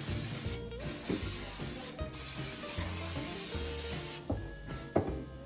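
Aerosol PAM cooking spray hissing onto battered onion rings in an air fryer basket. It comes in three spurts with two brief breaks and stops about four seconds in, followed by a couple of light knocks near the end.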